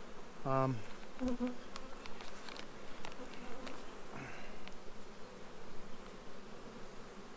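Carniolan honeybee colony humming steadily from an open hive as brood frames are lifted out, with a few light clicks of the wooden frames being handled.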